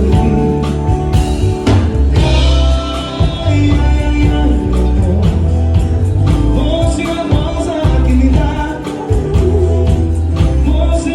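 A bolero song: a singer over band accompaniment with a strong bass line and a steady beat.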